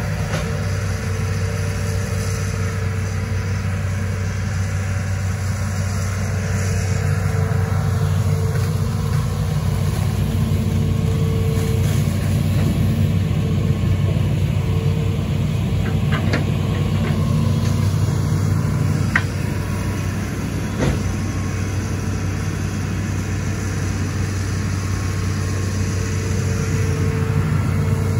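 Hitachi Zaxis 210 amphibious excavator's diesel engine running steadily as the machine digs, with a few short sharp knocks in the middle.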